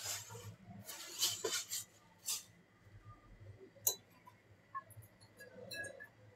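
Light clinks and knocks of kitchenware being handled at a counter, with a few short scraping sounds in the first couple of seconds and one sharper click a little before four seconds in.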